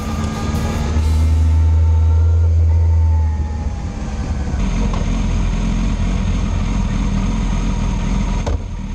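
Yamaha Fazer motorcycle engine running at low speed, louder for about two seconds near the start, then dropping off as the bike slows and running on steadily.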